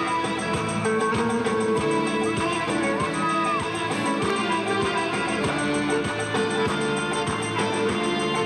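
Music: a guitar-led piece with a steady beat.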